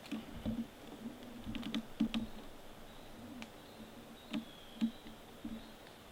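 Irregular light clicks and taps, bunched in the first couple of seconds, a few with a dull low knock under them, then spaced out.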